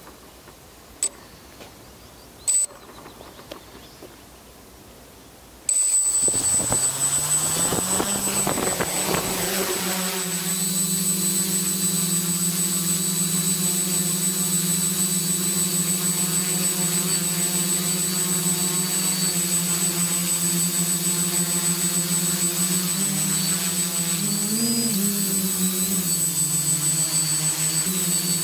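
Quadcopter electric motors and propellers spinning up about six seconds in after a few short clicks, rising in pitch as it lifts off, then a steady buzz with a high whine as it hovers and climbs, wavering in pitch briefly near the end as the throttle changes.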